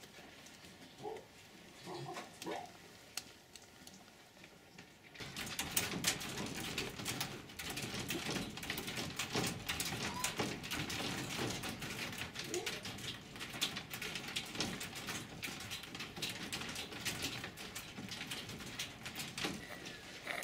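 Farmed foxes in wire-mesh cages: a few faint short calls at first, then, about five seconds in, a louder, busy stretch of clicking and rattling on the cage wire with the foxes' whines and cries mixed in.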